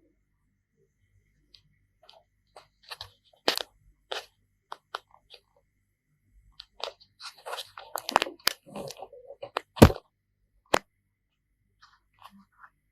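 Scattered clicks, taps and scraping of tools and parts being handled on an electronics repair bench. The loudest is a sharp knock about ten seconds in.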